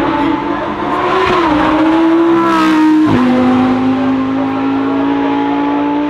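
Lamborghini Huracán EVO Spyder's 5.2-litre V10 engine accelerating, its note climbing, then dropping sharply at a gear upshift about three seconds in before climbing again.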